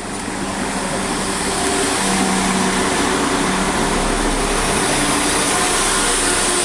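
A vehicle's engine running loudly, with a steady hiss. It builds over the first two seconds, then holds level.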